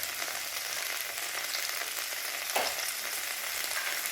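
Drumstick and potato pieces frying in a kadhai with a steady sizzle, one short clink of a utensil about two and a half seconds in.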